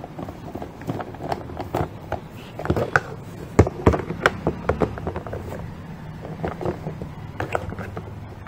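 Plastic toy construction parts and a toy screwdriver clicking and knocking as wheels are fitted and screwed onto a plastic toy loader, in irregular taps with a cluster of sharper knocks in the middle, over a steady low hum.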